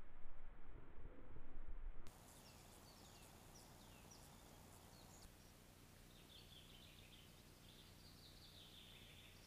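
Wild songbirds calling: a run of short, high chirps about two to five seconds in, then a longer warbling song in the second half, faint over a steady low hum. The first two seconds are a louder, fluctuating low rumble.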